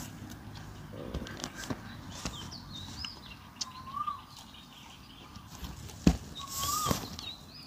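Birds chirping and calling, with scattered small clicks and mouth sounds from eating by hand close by, and one sharp click about six seconds in.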